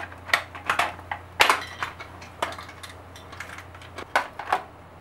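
Irregular plastic clicks and knocks as the unscrewed halves of an upright vacuum cleaner's plastic housing are pried apart and handled, the loudest about one and a half seconds in.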